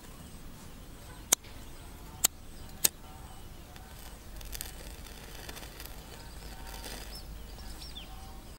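Three sharp clicks of a disposable flint lighter being struck, the first three in quick succession about a second in, over quiet outdoor ambience. A bird chirps faintly near the end.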